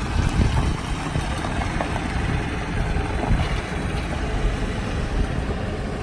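2008 Ford F450 bucket truck's engine running steadily as the truck pulls away and drives off.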